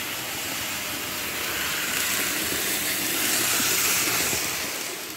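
N scale Kato GS-4 Daylight model steam locomotive running along the track: a hissing whir from its small motor and wheels on the rails. It grows louder as it passes close by, then fades as it moves away near the end.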